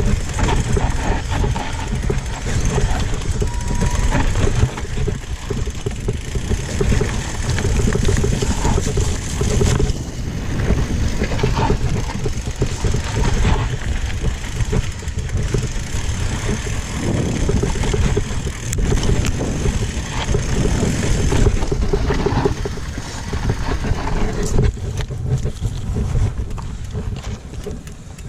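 Mountain bike descending a rough downhill trail: a continuous low rumble of wind rushing over the microphone, with the bike rattling and clicking over bumps.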